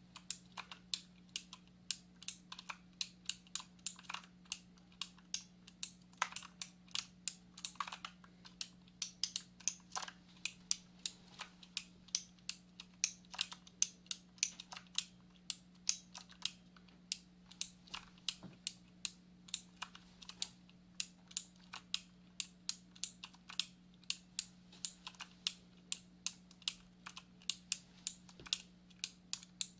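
Computer keyboard being typed on: sharp keystroke clicks at an uneven pace of about two to three a second. A faint steady hum sits underneath.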